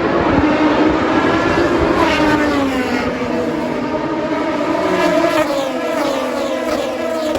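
Endurance race cars running at speed on the circuit, loud throughout. The engine note falls in pitch several times as cars pass or brake, and starts to climb again near the end.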